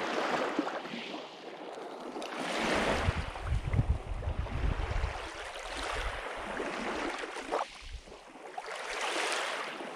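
Small lake waves washing onto a pebble beach, swelling and fading about every three seconds.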